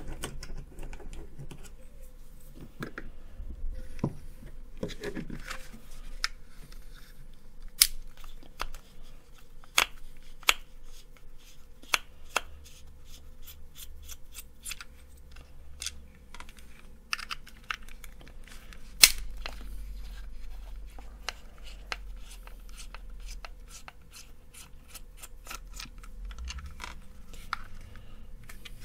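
Small screwdriver undoing the tiny bolts that hold a plug-in transformer power supply's plastic case together: scattered sharp clicks and light scrapes of metal on metal and plastic, the loudest click about two-thirds of the way through.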